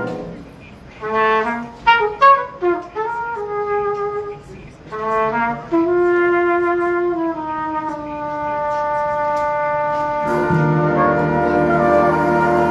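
High school jazz ensemble: the band's chord cuts off, and a lone horn plays an unaccompanied solo phrase of quick notes and a long held note. The full band comes back in near the end.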